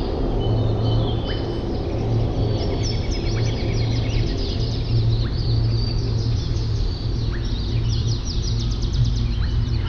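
Many small birds chirping and trilling in quick overlapping calls, over a steady low hum.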